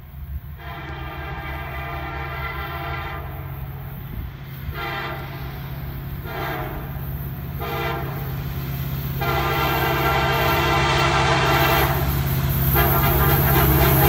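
Diesel locomotive air horn played in a string of blasts: a long blast, two shorter ones almost back to back, a quick toot, then two more long blasts, getting louder as the train nears. A steady low rumble from the oncoming train runs underneath.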